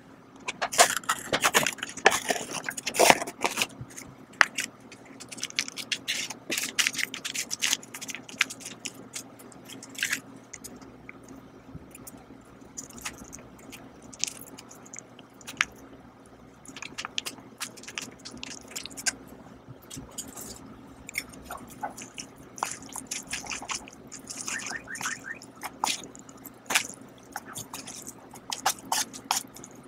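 Cup noodle being opened: the paper lid peeled back and the seasoning sachets crinkled and torn open, a run of sharp rustles and crackles that is busiest in the first few seconds. Near the end, chopsticks lift the noodles and eating sounds begin.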